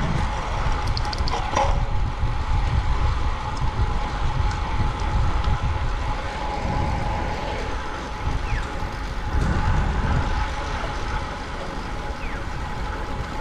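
Wind buffeting the microphone and tyre and road noise from a road bike being ridden at speed, with a faint steady tone running above the rumble.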